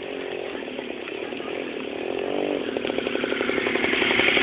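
A small engine running, its pitch dipping and rising briefly about two seconds in, growing louder toward the end.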